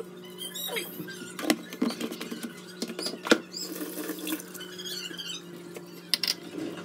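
Kitchen handling noises: a few sharp clicks and knocks as items are picked up and set down on a marble counter, over a steady low hum. The loudest knock comes about three seconds in.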